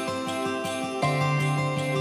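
Instrumental background music with sustained chords over a steady, quick pulsing rhythm; the chord changes about a second in.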